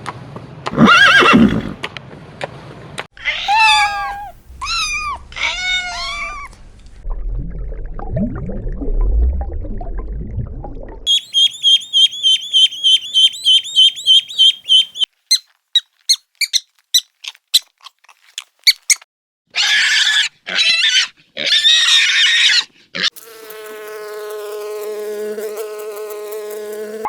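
A run of different animal calls one after another. It starts with a loud call, then three rising-and-falling cries, a low rumbling, a fast run of high chirps, sharp clicks, and harsher calls, and ends with a long steady pitched call.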